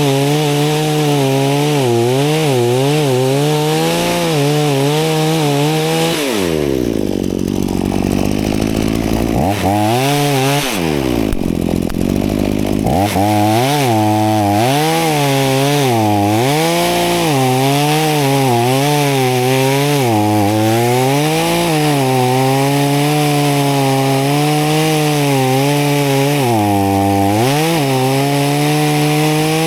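Two-stroke chainsaw running at high revs while cutting branches, its pitch wavering under load. Twice, about six and eleven seconds in, it drops to idle and then revs back up.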